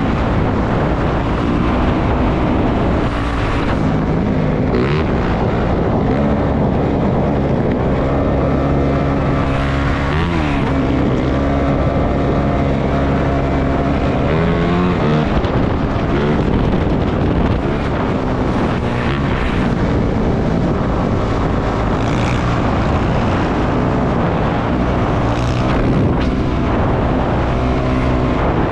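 450 cc four-stroke dirt bike engine running under way, its pitch dropping and climbing again a few times as the rider rolls off and opens the throttle.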